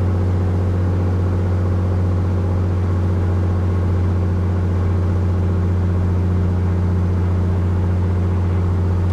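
Cessna 206H's six-cylinder Lycoming IO-540 engine and propeller running steadily at about 1800 RPM on both magnetos during a pre-flight run-up, heard from inside the cockpit.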